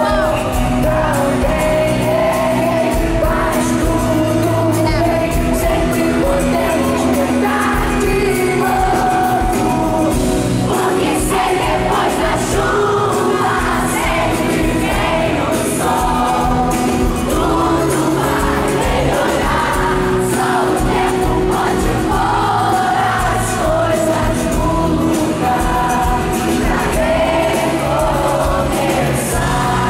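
Pop band playing live through a concert sound system, with lead singers' voices over the band.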